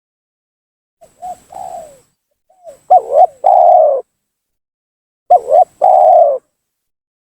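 Spotted dove cooing: three phrases, each of a couple of short notes followed by a longer, drawn-out falling coo. The first phrase is fainter and the later two are loud, with silence between them.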